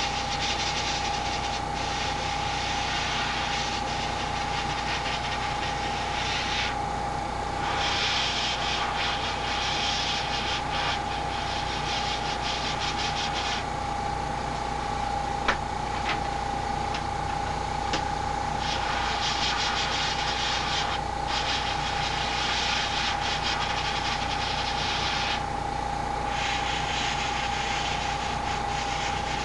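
Airbrush spraying paint, a steady hiss of air that stops for a moment several times as the trigger is let off, over a constant high-pitched whine and low hum.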